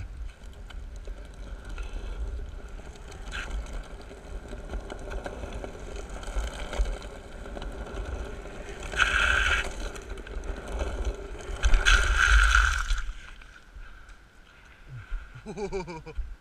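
Longboard wheels rolling over asphalt with a steady low rumble and wind on the microphone. Two louder hissing, scraping bursts come about nine and twelve seconds in.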